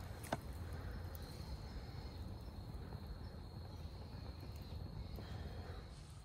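Wood campfire burning in a small fire stand, with a low steady rush and one sharp crackle about a third of a second in. An insect's steady high trill runs underneath from about a second in.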